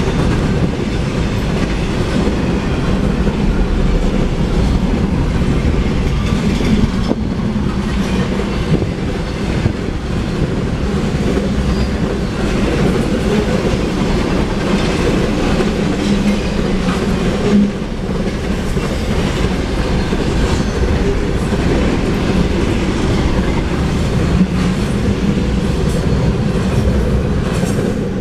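Double-stack intermodal container cars rolling past at speed: a steady rumble with the wheels clacking over the rails, beginning to fade right at the end as the last car goes by.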